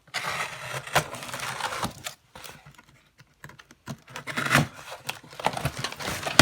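A cardboard box being opened and unpacked: tearing and rustling of tape and packaging with scattered clicks, in two stretches with a short quiet pause in the middle.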